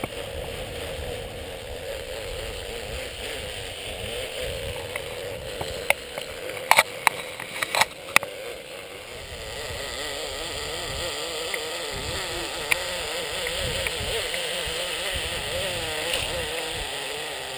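Zipline trolley pulleys rolling along the steel cable: a continuous whir that wavers up and down in pitch, with a quick cluster of sharp clicks about six to eight seconds in.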